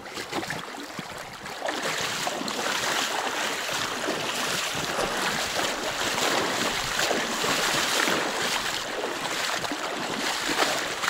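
Steady rushing of a shallow taiga river's water, growing louder about a second and a half in.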